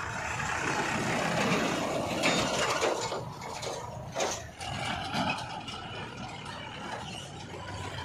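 Diesel tractor pulling an empty trolley as it drives past close by: engine running with the trolley body rattling and clattering, loudest in the first few seconds and then easing off.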